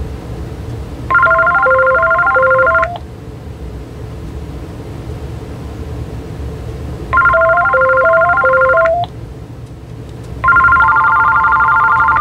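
AT&T EL52419 DECT 6.0 cordless phone ringing: three rings of about two seconds each, a rapid warbling trill with a short stepped melody beneath it. The third ring, near the end, has a different, faster trill. A steady low hum runs between the rings.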